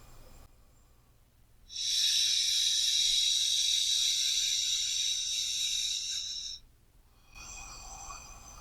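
A person's slow, deep breath: one long, loud rush of air that starts about two seconds in and lasts about five seconds, then stops.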